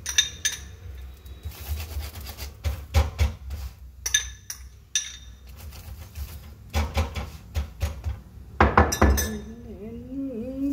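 A metal spoon clinking against a small glass bowl: a string of sharp, briefly ringing taps, mixed with spoon taps and scrapes on the pan as oil is spread on a paratha. A louder clatter of utensils comes a little before the end.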